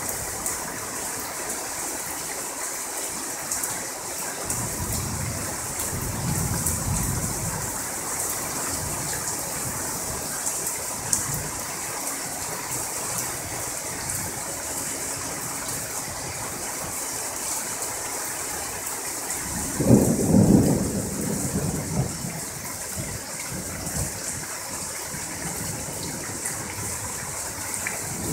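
Steady heavy rain hissing, with thunder: a low rumble a few seconds in, then a sharper, louder thunderclap about two-thirds of the way through that rumbles on for a couple of seconds.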